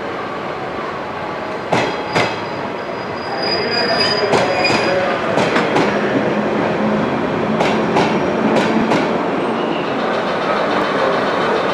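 Two KTR 700-series diesel railcars rolling slowly past, their wheels clicking over rail joints in pairs, about five pairs a few seconds apart. A brief high wheel squeal comes in between about three and five seconds in.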